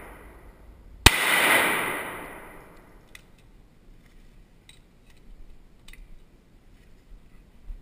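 A single pistol shot about a second in, its report ringing on and dying away over about a second and a half in a rock-walled tunnel range. Later come a few faint clicks and knocks.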